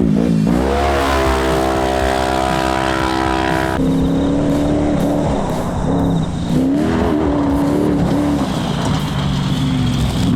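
Side-by-side UTV engine running hard under throttle. Its note dips, then climbs and holds high; about four seconds in it drops suddenly to a lower note that rises and falls with the throttle.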